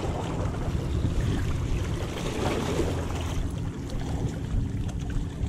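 Wind rumbling on the microphone, with bay water washing over the rocks at the water's edge; the wash swells for about a second midway.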